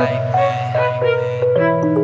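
Backing music of a pop song between sung lines: held notes stepping to a new pitch every half second or so over a steady low bass.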